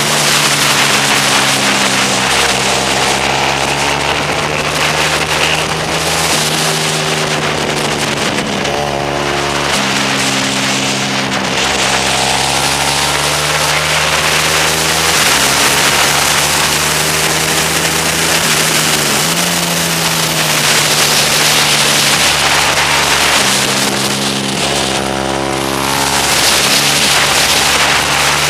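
Sport motorcycle engine running hard, its pitch rising and falling several times with throttle and gear changes, under heavy wind rush on the onboard microphone.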